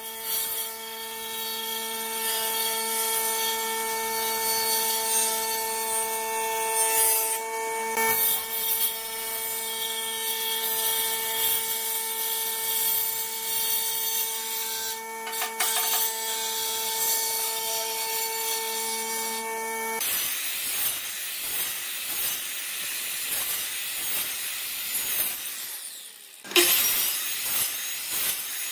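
Table saw running with a steady hum while a wide wooden board is fed through it along the fence, ripping it. About twenty seconds in the sound changes abruptly to a rough noise without the hum. Near the end a sliding compound miter saw starts suddenly and loudly, cutting across a board.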